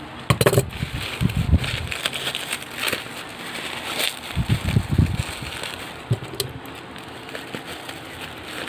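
Packaging being handled: crinkling plastic wrap with scattered clicks and a few dull bumps.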